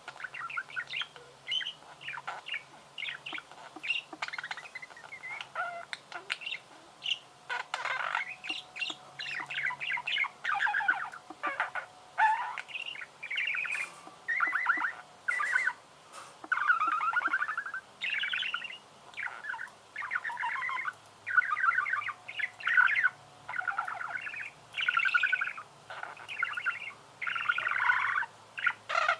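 Budgerigars warbling and chattering: fast runs of squeaky chirps and twittering notes, one short phrase after another.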